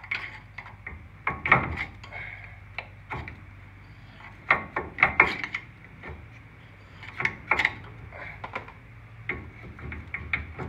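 Flathead screwdriver prying at a brake caliper's slide pin: irregular clusters of metal clicks and scrapes, the strongest about a second and a half, five seconds and seven and a half seconds in.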